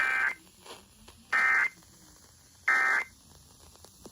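Emergency Alert System end-of-message signal: three short bursts of two-tone digital data about a second apart, the SAME code that marks the end of the alert.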